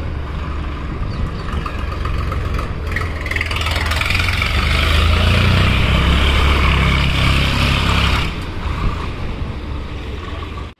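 Swaraj 744 FE tractor's three-cylinder diesel engine running as the tractor drives past. It grows louder a few seconds in as the tractor comes closest, then eases off as it moves away.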